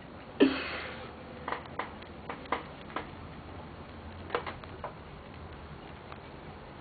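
Small cats playing on a hard floor: a brief scuffle about half a second in, then scattered light taps and clicks.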